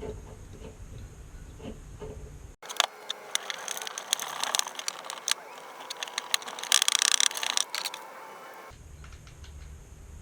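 Small metal tool and part clicks while a hose clamp is fastened on a fuel pump assembly, thickening into a fast run of sharp clicks about seven seconds in. The low background hum cuts out suddenly a little over two seconds in and returns near the end.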